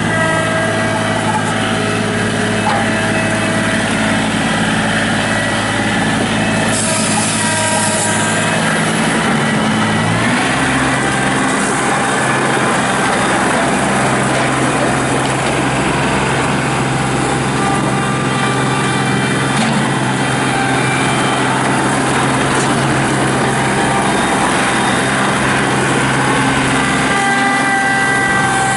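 John Deere 2032R compact tractor's three-cylinder diesel engine running steadily; about ten seconds in its speed rises a little and holds there, with a short hiss near the seven-second mark.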